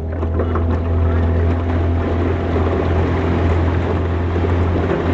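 Small boat's outboard motor running steadily under way, a constant low hum, with water and wind noise over it.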